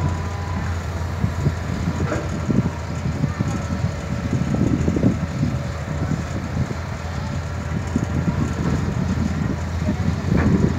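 Diesel engine of a Hitachi Zaxis 200 hydraulic excavator running steadily under load while it digs and loads soil, with irregular clatter and a few knocks over the steady hum.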